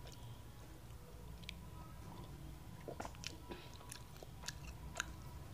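Metal spoon scraping and clinking against a kadhai while stirring macaroni to mix in the masala: irregular short clicks and scrapes over a low steady hum.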